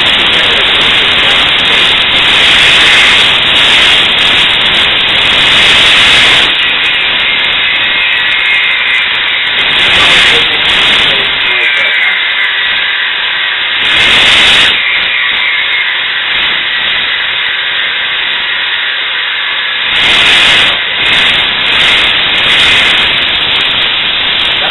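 Compressed air blasting from an air compressor's blow nozzle, holding a golf ball suspended in the jet: a loud, continuous hiss that swells and eases several times. The air breaking up around the ball's dimples adds to the noise.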